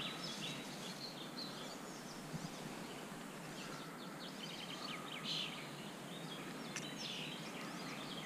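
Birds chirping and singing again and again over a steady background hiss.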